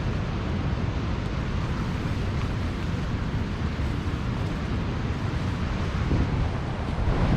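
Wind buffeting the microphone: a steady, unbroken rushing noise with a rumbling low end.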